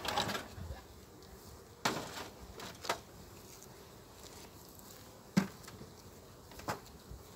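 Honeybees buzzing around an opened wooden beehive as it is handled: a scrape as the lid comes off at the start, brief rustles about two and three seconds in, and sharp knocks, the loudest about five seconds in.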